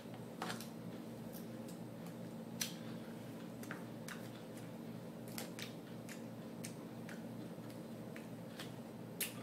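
A fork clicking and scraping against a plastic container as salad is picked up: irregular sharp clicks, a dozen or so, with a steady low hum under them.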